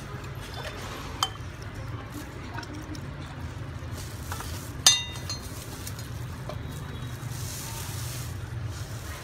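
Metal ladle clinking against a clay pot and serving bowl while soup is ladled out: a sharp clink about a second in and a louder one about five seconds in, over a steady low hum.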